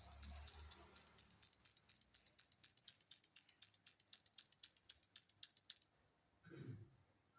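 Faint, rapid light clicks, about five a second, stopping about six seconds in, followed by a short low thump near the end.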